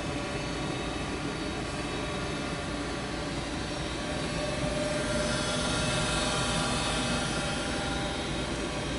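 Home heating equipment running steadily: a hum and hiss with several steady tones, growing a little louder midway and easing again near the end.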